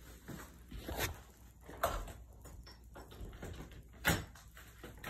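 A door being unlatched and opened: a few sharp clicks and knocks, with a low rumble of handling underneath.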